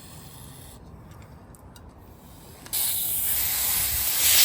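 Pressurised spray hissing steadily through a passage of a Subaru EA190V small engine's fuel system. It starts suddenly about two and a half seconds in and grows louder near the end.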